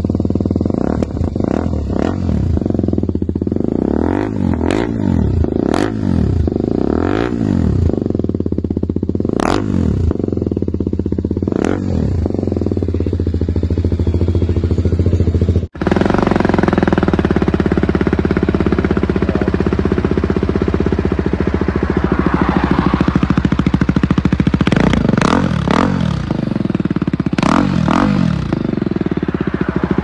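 BMW G310R's 313 cc single-cylinder engine, heard through a LeoVince slip-on exhaust, blipped about seven times from idle, each rev rising and falling quickly. About halfway through the sound cuts suddenly to the bike idling, with a few more throttle blips near the end.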